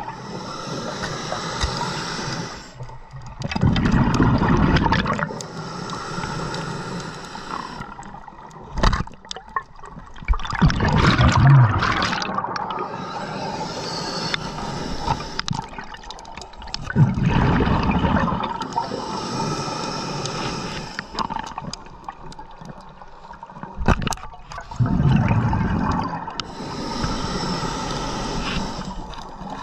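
Scuba regulator breathing heard underwater: a hissing inhale, then a low rumbling burst of exhaust bubbles, repeating about every six seconds for four breaths. A few sharp knocks fall between the breaths.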